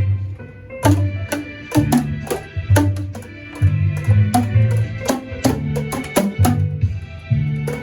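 Music with a steady drum beat over a low bass line and other pitched instruments.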